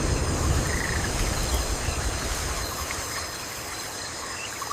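Tropical forest ambience: a steady hiss over a low rumble that slowly eases off, with steady high-pitched insect-like tones and a few short chirps.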